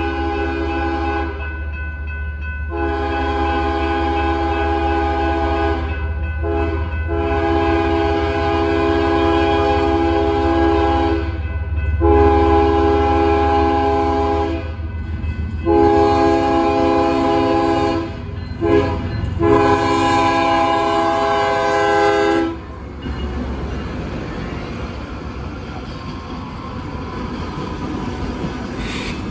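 Diesel freight locomotive's multi-chime air horn sounding a series of long blasts broken by a few short ones, over the steady low rumble of the train. The horn stops about three-quarters of the way through, leaving the rumble and rolling noise of the passing train.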